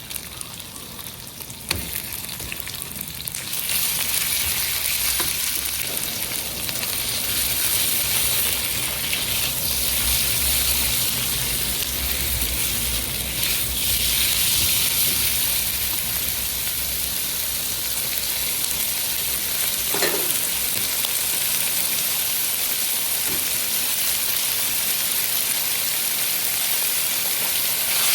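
Food frying in a hot pan: a steady sizzle that swells loud about three and a half seconds in, after a sharp knock just before the two-second mark.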